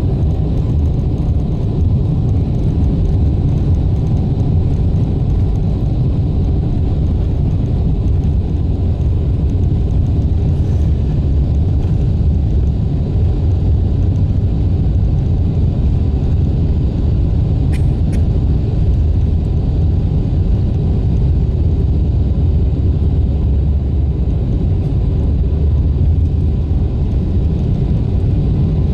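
Jet airliner cabin noise heard from inside the cabin: a loud, steady low rumble of the engines and airframe.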